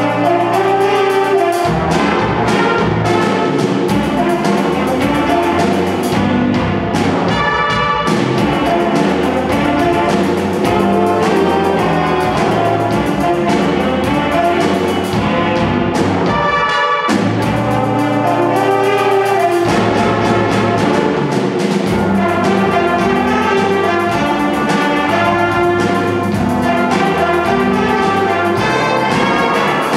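Big-band jazz ensemble playing live: a saxophone section, trombones, trumpets and drum kit together in full ensemble, with brief breaks in the low end about 8 and 17 seconds in.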